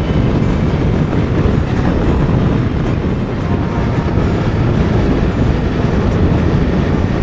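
Steady roar of a Suzuki V-Strom DL1000 ridden at road speed: wind rushing over the action camera's microphone mixed with the motorcycle's V-twin engine running.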